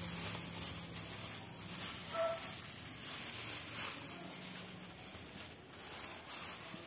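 A bare hand kneading and squishing chicken pieces in a thick, sticky flour batter, giving irregular wet squelches and slaps.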